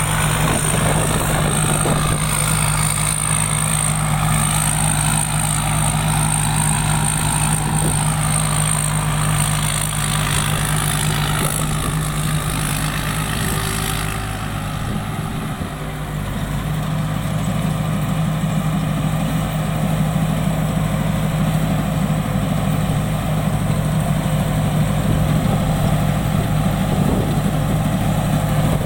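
Combine harvester's diesel engine running steadily. It eases off briefly about halfway through, then picks up again. A thin high whine over it stops around the same point.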